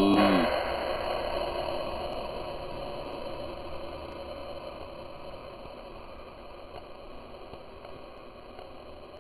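Flatbed tow truck driving away, its engine and road noise fading steadily over several seconds. A brief pitched sound with a bending pitch comes at the very start.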